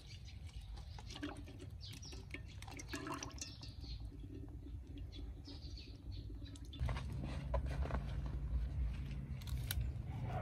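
A small bird chirping in short, high, falling calls every second or two, over scattered light clicks and knocks. About two-thirds of the way in, a low steady rumble comes in and stays.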